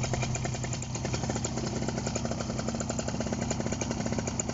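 Simonini Mini 2 single-cylinder two-stroke paramotor engine idling steadily at about 1800 rpm with its propeller turning, a fast even beat of firing strokes.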